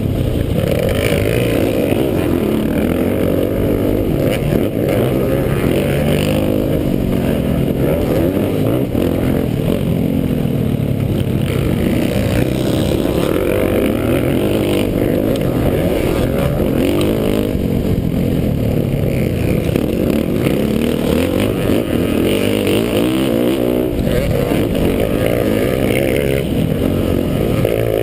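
Motocross bike engine heard from on board, running hard under load, its pitch rising and falling over and over as the throttle opens and closes.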